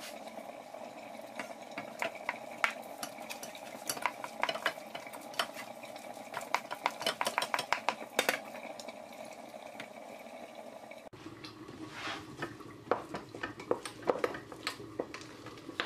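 Wooden spoon stirring thick mashed potato in a stainless-steel pot, with many quick light knocks and scrapes of the spoon against the pot's sides.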